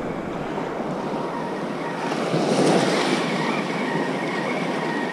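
Surf washing onto the beach, with wind on the microphone; a wave swells louder about two and a half seconds in.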